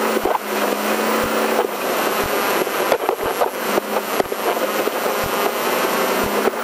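Off-road race vehicle's engine running hard inside its open caged cab, heard under a loud din of wind and drivetrain noise, with frequent sharp, irregular knocks and rattles.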